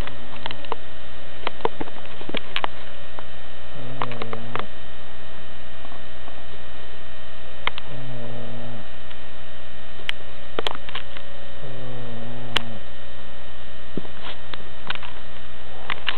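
A woman snoring hard in her sleep, one snore about every four seconds, over a steady electrical hum.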